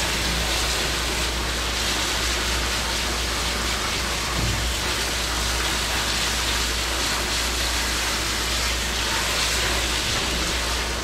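Hose spray nozzle running a steady jet of water onto live blue crabs in a stainless steel sink, rinsing the mud off them.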